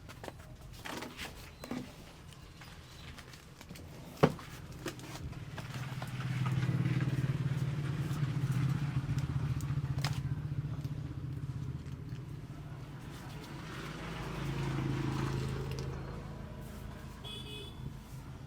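A single sharp click about four seconds in. Then a motor vehicle's engine swells and fades over about six seconds as it passes, and a second, shorter engine swell follows near the end.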